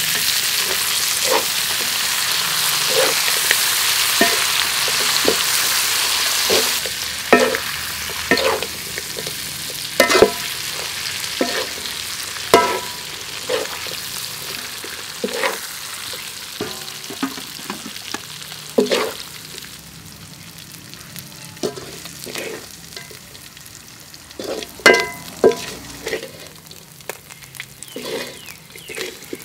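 Chicken wings stir-frying in an aluminium wok: a loud sizzle with a metal spatula scraping and knocking against the pan about once a second. The sizzle dies down after about seven seconds, leaving mostly the spatula's scrapes and clanks.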